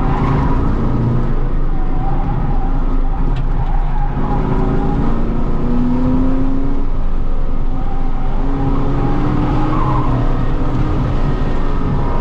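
Holden Commodore VE SS ute's 6.0-litre V8 running hard under load, heard from inside the cabin while lapping, with faint tyre noise.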